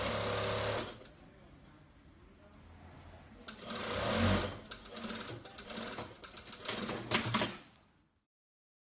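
Industrial flatbed sewing machine stitching three-layer Nomex race-suit fabric: a short run of about a second, a few quieter seconds, then a longer run of about four seconds. The sound falls away to silence near the end.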